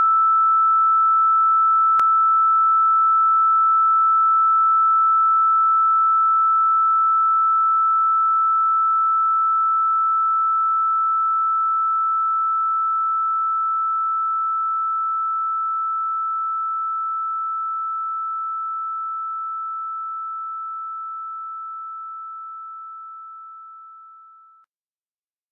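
A single steady high-pitched electronic sine tone from a tape composition. It holds level for about five seconds, then fades slowly over the next twenty and cuts off just before the end. A faint click sounds about two seconds in.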